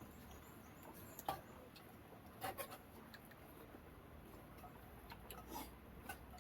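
Faint, irregular clicks and taps, a few at a time, over a quiet steady background.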